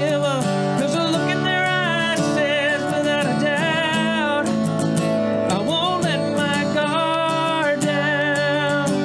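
A man singing a country-style song, holding long notes with vibrato, over his own strummed acoustic guitar.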